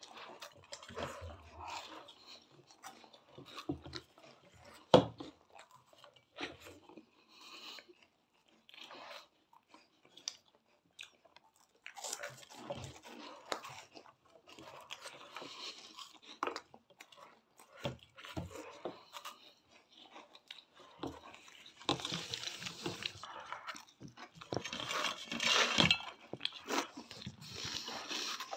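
Several people crunching and chewing cheese balls, eating them straight off plates without using their hands: scattered crisp crunches, with a single sharp knock about five seconds in. The crunching grows denser and louder near the end.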